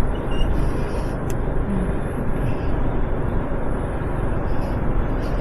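Steady rumble of wind and road noise from a motorcycle being ridden, with no distinct engine note or impacts standing out.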